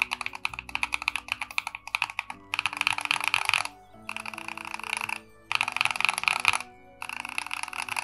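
Keystrokes on a mechanical keyboard fitted with Gateron Baby Kangaroo and Equalz C3 Tangerine switches: separate key presses at first, then from about two and a half seconds in, four runs of very fast typing with short pauses between them. Background music plays underneath.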